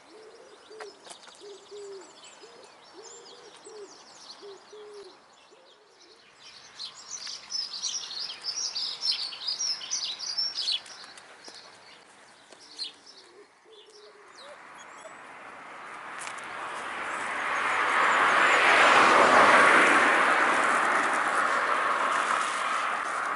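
A pigeon cooing in a repeated low phrase, then a small songbird twittering high notes. Later a broad whoosh swells up, becomes the loudest sound, and slowly fades.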